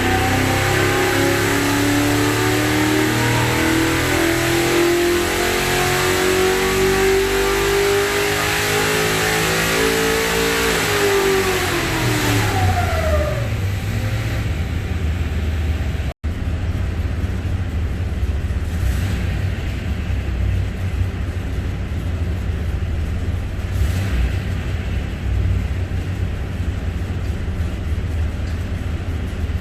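1969 Corvette race V8 on a dyno making a full-throttle pull: the engine note climbs steadily for about eleven seconds, then falls away quickly as the throttle closes and settles into a steady low rumble. The sound cuts out for an instant about sixteen seconds in.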